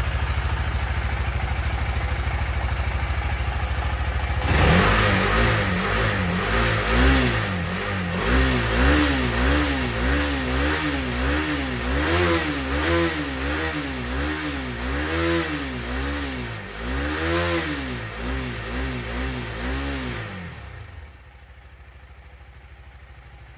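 2018 KTM Duke 250's single-cylinder four-stroke engine running at a steady idle, then revved up and down repeatedly, about once a second, running again after a year standing dead on its recharged battery. The engine stops near the end.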